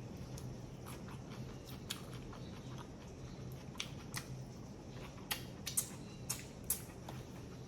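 Close-miked mouth sounds of someone chewing a grinder sandwich: wet clicks and smacks, sparse at first and more frequent in the second half, over a low steady hum.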